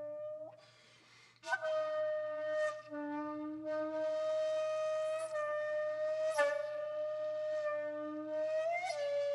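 Background music: a flute-like wind instrument holding long notes at nearly the same pitch, each new phrase starting with a breathy attack. It drops out briefly about a second in.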